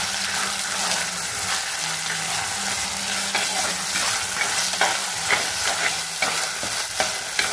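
Ground chilli masala paste with onions and green chillies sizzling in hot oil in a black chatti, stirred with a ladle that scrapes against the pot now and then.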